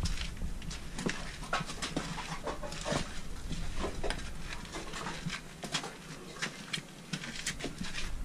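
Footsteps scuffing and crunching over litter and cans on a tunnel floor while someone moves along crouched, with irregular clicks and crackles.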